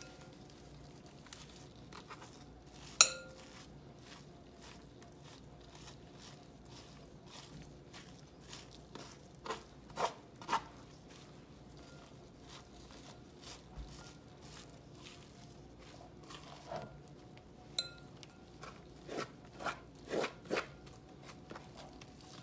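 Metal fork scraping the strands of a baked spaghetti squash out of its skin into a glass bowl: scattered soft scrapes and clicks. The loudest is a sharp clink with a brief ring about three seconds in, with another near the end of the second third and quicker runs of scraping around ten and twenty seconds.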